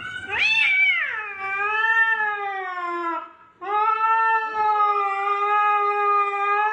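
Cat yowling in two long, drawn-out calls. The first rises sharply, then wavers down. After a short break about three and a half seconds in, the second is held fairly steady.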